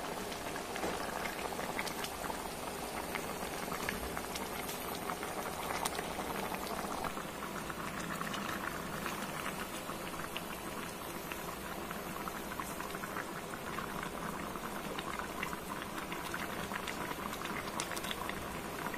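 Curry gravy boiling hard in a wide pan, a steady bubbling full of small pops as the sauce reduces and thickens.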